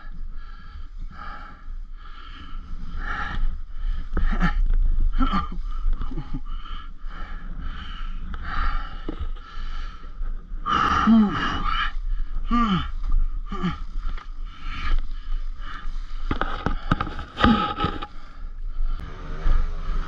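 Heavy, repeated breaths and strained grunts of effort from a rider wrestling a fallen enduro motorcycle up a steep dirt slope, with scraping as the bike is dragged. Near the end a motorcycle engine starts running.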